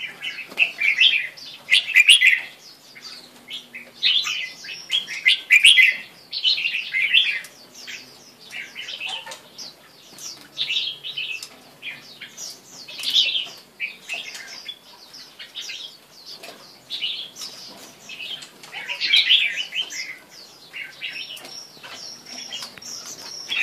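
Caged red-whiskered bulbul singing short warbling phrases, one every second or two.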